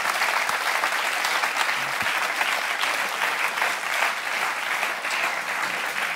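Studio audience applauding steadily, a dense patter of many hands clapping that eases slightly toward the end.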